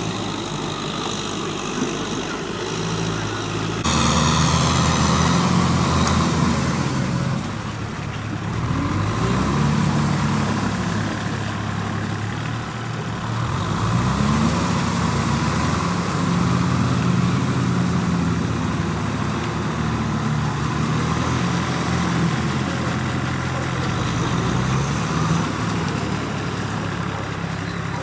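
Compact farm tractor engine running steadily as it tills a flooded rice paddy, its pitch dipping and rising several times with the load. It gets louder about four seconds in.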